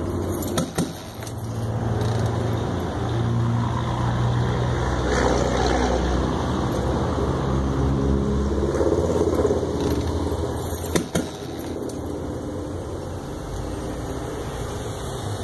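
A motor vehicle engine running with a low hum that grows louder and shifts in pitch through the middle, then settles. Two sharp clicks, one about half a second in and one near eleven seconds.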